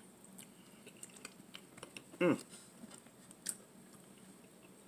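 Close-up sounds of a person eating bow-tie pasta in meat sauce: wet chewing, lip smacks and small clicks. About two seconds in comes one short vocal sound from the eater that dips and rises in pitch, the loudest thing here.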